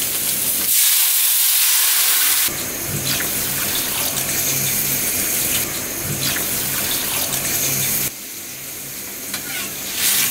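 Water poured from a jug into a hot kadai of masala-fried potatoes and spices. A loud hiss and sizzle starts about a second in as the water hits the hot oil, followed by the splash and trickle of pouring into the thin gravy.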